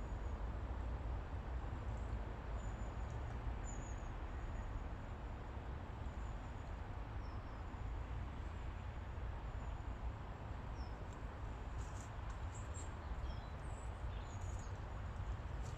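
Outdoor ambience: a steady low rumble with faint, short, high bird chirps scattered through it, and a few sharp clicks in the last few seconds.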